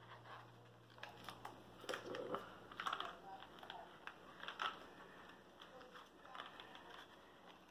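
Faint, irregular clicks and light rustles of hands handling and working at a package.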